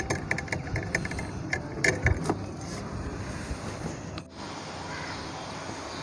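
A small tube cutter being turned around a rusted refrigerator pipe to cut it out, giving a quick run of clicks and scrapes over the first two seconds; after that only a steady background hiss.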